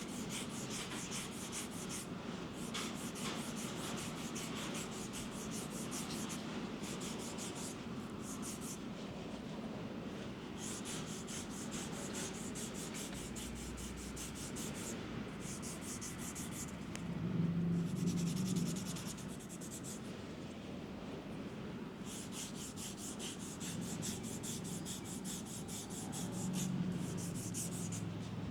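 Fast, even rubbing or scraping strokes of a grooming tool on skin, hair or nails, in runs of a few seconds with short pauses between. A brief low rumble comes about two-thirds of the way through, and again near the end.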